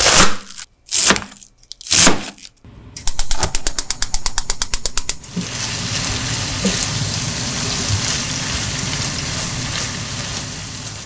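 A kitchen knife cutting through a cabbage on a plastic cutting board in three loud strokes about a second apart, followed by a quick run of rapid knife taps. Then a steady sizzle of cabbage, ground meat and egg stir-frying in a frying pan, dropping away near the end.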